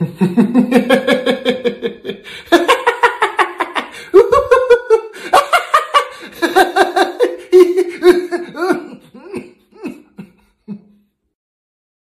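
Human laughter sound effect: rapid 'ha-ha' laughing that changes in pitch and voice several times, trailing off into a few last short bursts and stopping near the end.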